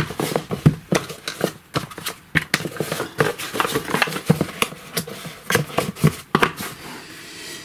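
Cardboard box and plastic multimeter being handled on a workbench: a busy run of taps, knocks, scrapes and cardboard rustles as the meter is set down and the empty box is picked up, folded and moved aside. The noise eases off near the end.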